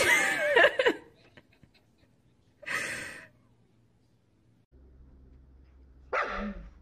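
Husky vocalising: a loud wavering cry in the first second, a short breathy burst a few seconds in, and near the end a brief call that falls in pitch.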